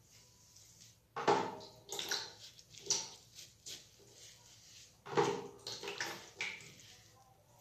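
Liquid splashing in a tiled bathroom as milk-and-egg mixture and water run off wet hair: two loud splashes about four seconds apart, each trailing off into spattering and dripping.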